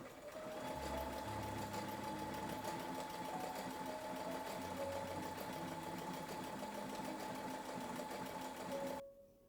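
A small electric motor running steadily with a rapid, even clatter for about nine seconds, then cutting off suddenly, with soft piano music underneath.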